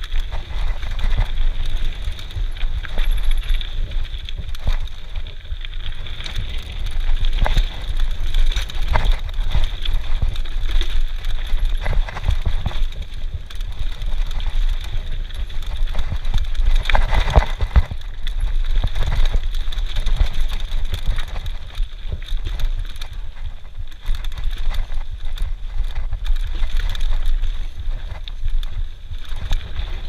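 Mountain bike riding down a rough dirt singletrack: a constant low rumble of wind and tyre noise on the camera microphone, with frequent knocks and rattles as the bike bounces over bumps. The clatter is heaviest about seventeen seconds in.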